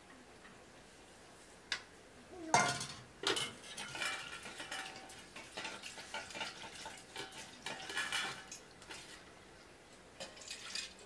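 Stainless steel bowls, pots and serving spoons clinking and clattering as food is dished out. It starts with a loud clank about two and a half seconds in, goes on in irregular clinks for several seconds, and there are a few more clinks near the end.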